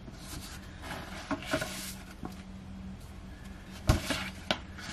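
Paper rustling and soft handling clicks as the pages of an album photobook are turned, with one sharper knock just before the end.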